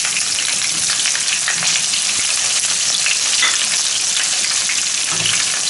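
Chopped onions frying in hot mustard oil in a pan, a steady sizzle with constant crackling.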